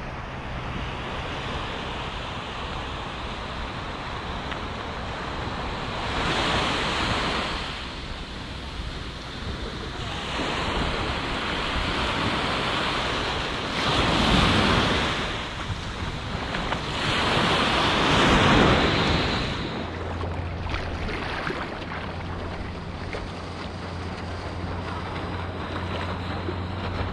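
Ocean surf and rushing water heard from a helmet-mounted GoPro in the water, with wind buffeting the microphone. The water noise swells loudly three times: about six seconds in, around fourteen seconds, and again around seventeen to nineteen seconds.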